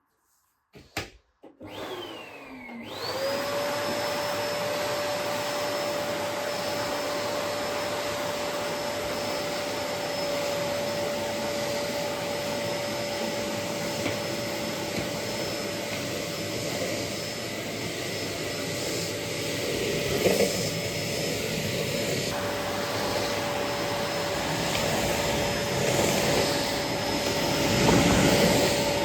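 Bosch vacuum cleaner switched on after a few clicks, its motor spinning up about three seconds in and then running with a steady whine and rush of air. The sound swells briefly louder a couple of times near the end.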